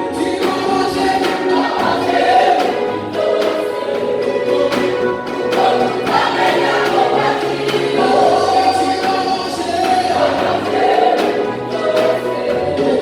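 Choir singing a gospel worship song, many voices holding long notes together.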